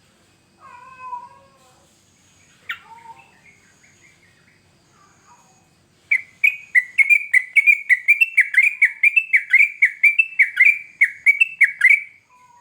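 Yellow-vented bulbul (trucukan) calling: a few scattered, mewing calls, then about six seconds in, a loud, rapid run of short falling notes, about three a second, lasting some six seconds.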